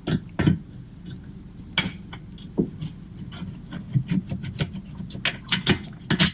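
Irregular metallic clicks and knocks of hand tools and a bolt and nut being worked into a suspension arm while a nut is started on its threads, coming thicker in the second half, over a steady low hum.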